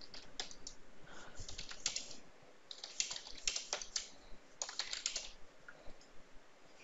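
Typing on a computer keyboard: several quick runs of keystroke clicks with short pauses between them, thinning out near the end.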